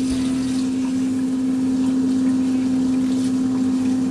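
Kitchen tap running into a pot of uncooked rice for the first rinse, a steady rush of water, over a steady low hum.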